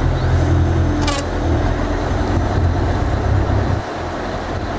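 A steady low motor drone over rushing wind-and-water noise, with a brief sharp sound about a second in.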